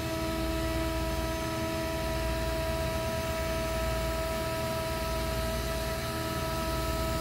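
DeWalt 618 router on a CNC gantry spinning at a steady speed as it cuts MDF: a constant whine with a few steady overtones over an even hiss of air. The sound is fairly quiet and unchanging, with no start, stop or load change.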